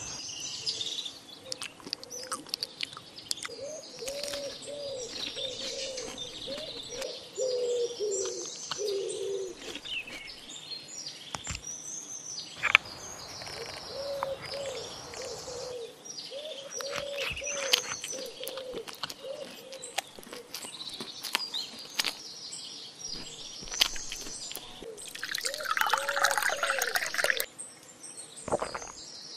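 Eating sounds: fork clicks on a wooden board and chewing, with birds chirping in the trees and a dove cooing over and over in short low calls. Near the end, about two seconds of loud slurping as a drink is taken from a bowl.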